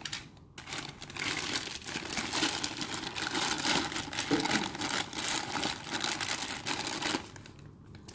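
Clear plastic wrapping crinkling and rustling as toy train cars are pulled out of their bags, a dense crackle that stops about seven seconds in.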